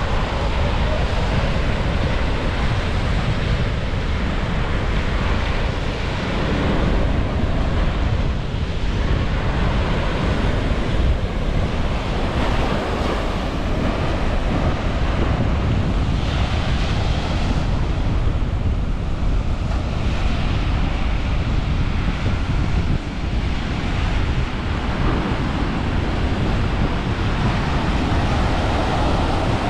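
Ocean surf breaking and washing up a sandy beach, a continuous noisy rush that swells and eases as the waves come in, with wind buffeting the microphone.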